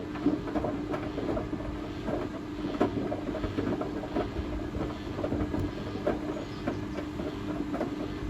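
Zanussi Essential ZWF12070W front-loading washing machine running its cycle with watermelon inside: a steady motor hum and rumble from the turning drum, with irregular knocks and clatter throughout.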